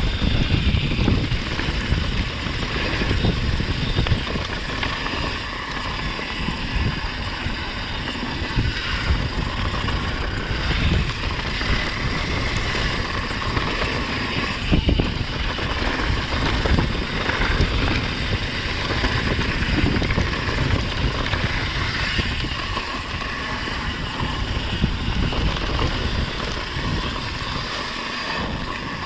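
Wind buffeting the microphone and tyres rolling over dirt during a downhill mountain bike run, a steady rushing rumble with a few sharp knocks.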